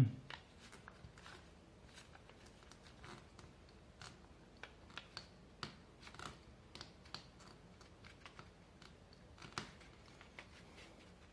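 Faint, irregular little clicks and rustles of thread being wound around the small nails of a string-art board while fingers pull it taut. A slightly louder click comes near the end.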